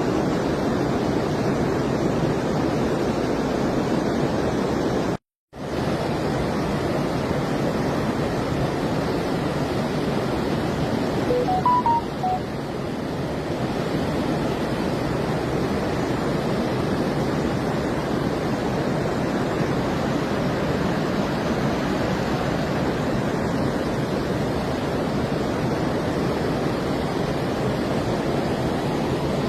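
Steady rush of fast-flowing water, such as a rain-swollen stream or torrent. It cuts out for a moment about five seconds in.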